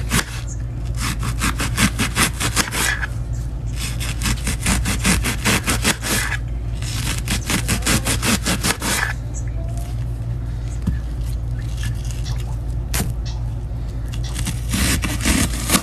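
Serrated kitchen knife sawing back and forth through a whole onion to cut very thin slices: three runs of quick scraping strokes, about nine a second, each lasting a few seconds with short pauses between.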